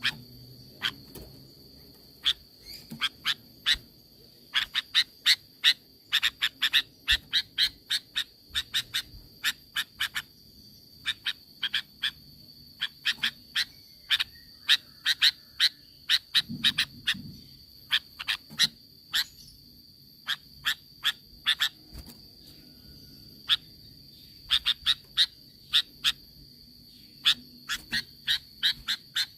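Sooty-headed bulbul (kutilang) calling in quick runs of short, sharp notes, several a second, with brief pauses between runs. A steady high-pitched tone runs underneath.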